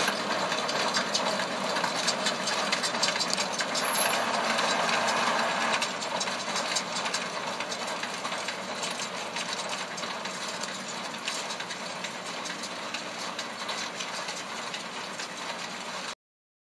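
Tractor engine running with the loader wagon it pulls clattering and rattling as it drives across the slope, the sound fading as it moves away, then cutting off abruptly near the end.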